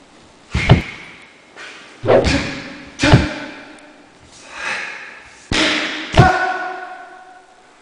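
A string of video-game fighting hit sound effects: about half a dozen sharp punch and kick impacts a second or so apart, each trailing off. The last one rings on with a tone.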